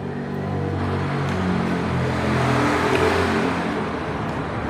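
A motor vehicle passing, its engine growing louder up to about three seconds in, then fading.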